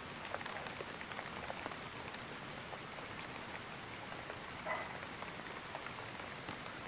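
Steady rainfall: an even hiss with many individual drops ticking throughout. A short pitched sound stands out briefly just before five seconds in.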